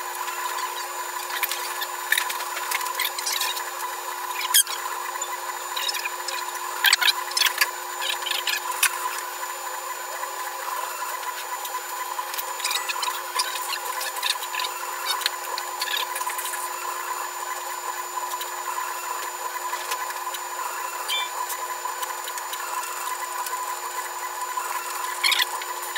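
UP Plus 2 3D printer running a print, sped up eight times: a steady mechanical hum and whine from its stepper motors and fan, broken by quick squeaks and clicks as the print head and bed move.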